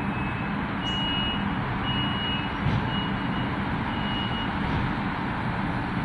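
Adelaide trams at the platform, with a steady low electric hum as the tram on the far track pulls away. Over the hum come short high electronic beeps, one or two a second, which stop about four and a half seconds in. There is a single light knock about midway.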